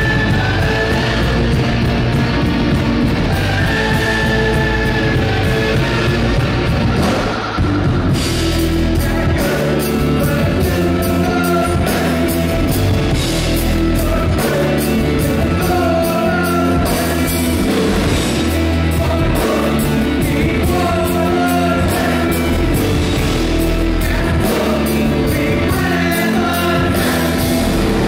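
Live rock band playing loud: distorted electric guitars, bass guitar and drum kit, with a brief break about seven seconds in before the band comes back in.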